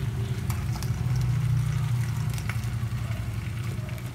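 Turon, banana-and-coconut spring rolls, frying in hot oil: a faint, even sizzle with a few light clicks, under a steady low hum.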